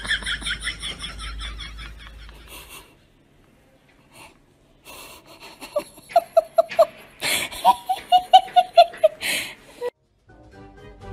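Human laughter in quick repeated bursts: a breathy, high run of rapid ha-ha pulses at the start, then after a short pause two runs of deeper pitched laughs at about four a second. Faint music comes in near the end.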